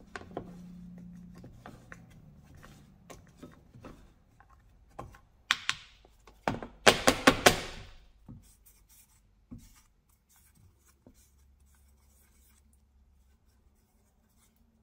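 Small straight-blade screwdriver scraping and ticking in the snap-ring slot of a snowmobile bogie wheel, clearing out debris. About halfway through comes a quick run of four or five sharp knocks, followed by faint handling ticks.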